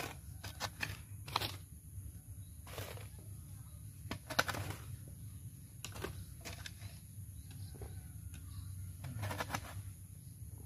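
Irregular scrapes and knocks of soil being worked around a freshly planted avocado seedling, about ten short noises spread unevenly, over a low steady rumble.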